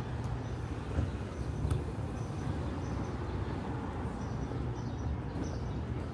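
City street traffic: a steady low rumble of engines idling and moving through an intersection, with short, high bird chirps repeating over it from about two seconds in.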